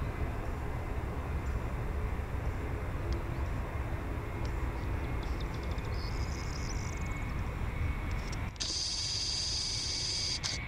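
Airbus A321-231's IAE V2500 turbofans at takeoff thrust during the takeoff roll, a steady low rumble. About eight and a half seconds in the sound changes abruptly: the rumble thins and a high hiss comes in.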